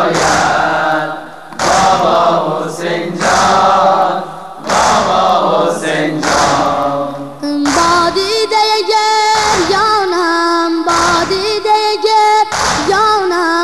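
Persian Shia lament (noha) singing: a group of voices chanting together, then from about halfway a single high solo voice holding long, wavering notes. Regular beats about every second and a half keep time under both.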